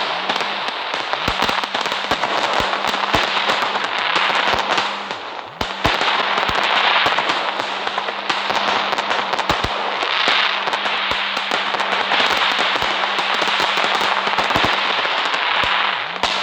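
Fireworks crackling: a continuous hiss packed with rapid small pops and sharp cracks, easing briefly about five and a half seconds in before carrying on.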